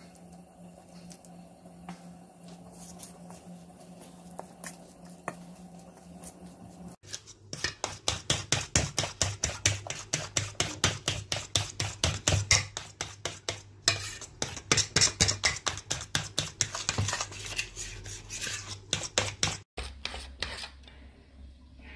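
Thick batter being beaten with a metal utensil in a stainless steel bowl: rapid, rhythmic strokes, about four a second, clinking and scraping against the bowl. The strokes start about seven seconds in and stop suddenly near the end. Before them there is only a faint hum with a few light clicks.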